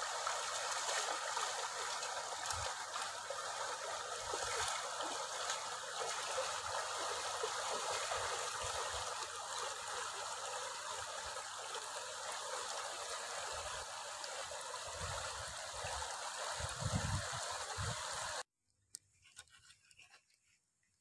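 Shallow stream running steadily over rocks, with a few low thumps shortly before the end. The water sound cuts off abruptly near the end, leaving only a few faint ticks.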